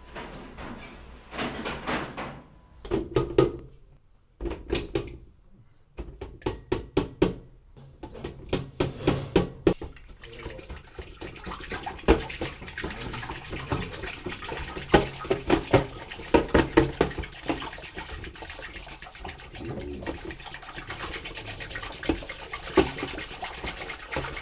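Irregular clinks and knocks, then from about ten seconds in a wire whisk beating a frothy liquid in a glass dish: fast, even clicking and scraping of the wires against the glass.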